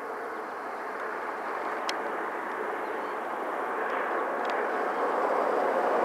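Freight train of grain hopper cars rolling past at a distance: a steady noise that grows gradually louder, with a couple of faint clicks.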